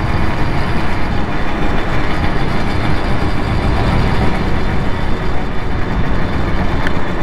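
Simson two-stroke moped running under way while being ridden, its engine noise mixed with steady rushing wind over the microphone.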